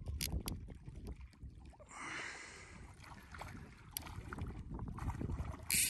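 Wind buffeting the microphone with a low rumble, with a few sharp clicks, a short hiss about two seconds in and a louder brief burst near the end.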